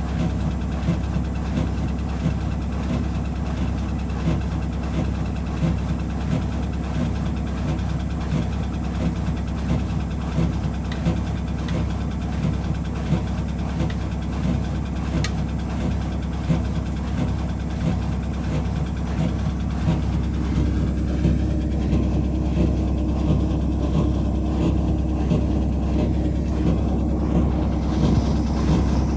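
Whirlpool 5 kg washing machine on its final spin, the drum running with a steady low hum and a regular thumping from an unbalanced load. About twenty seconds in, the sound settles into a steadier tone.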